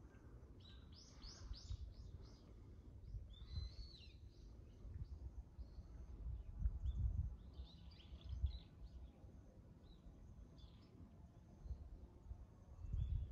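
Small birds chirping in short, scattered bursts of high calls, over an uneven low rumble.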